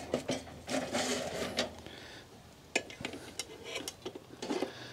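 Metal clinks, scrapes and sharp clicks as an Auspit rotisserie's spit rod and motor are fitted into place on a stainless steel fire-pit stand.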